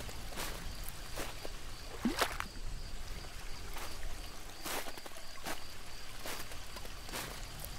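Water sounds outdoors: soft splashes or laps recurring about once every second, over a low rumble.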